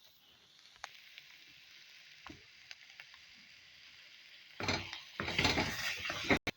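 Grated-carrot halwa sizzling softly in ghee in a kadai. Near the end a spatula stirs and scrapes through the thick mixture for about two seconds, then the sound stops abruptly.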